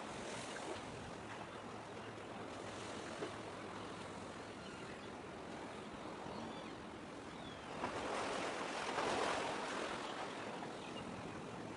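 Sea water washing against concrete tetrapods on the shore: a steady wash that swells into a louder surge about eight seconds in.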